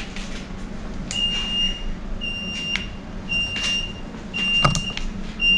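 E10 electric scooter's hazard-light buzzer beeping with the hazard alarm switched on: a high, steady beep about half a second long, repeating about once a second. A couple of short clicks from handling the handlebar controls come about four and a half seconds in.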